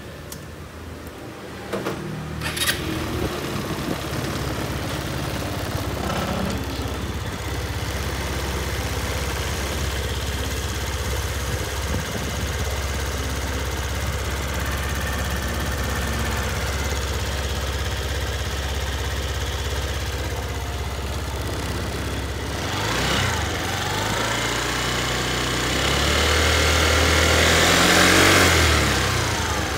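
Kymco Many scooter engine starting about two seconds in and idling steadily, then revved briefly and once more for a longer rise and fall near the end.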